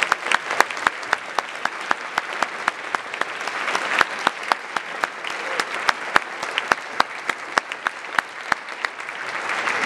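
Audience applauding, with sharp single hand claps standing out close by. The applause eases off after the first second and builds again near the end.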